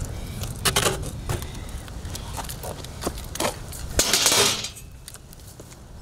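BMX bike being handled and ridden on asphalt: metallic clinks and rattles from the bike, then a short scraping rush about four seconds in.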